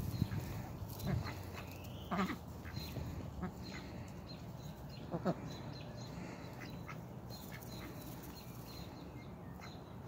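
Domestic ducks quacking off and on, with sharper calls about two seconds and five seconds in.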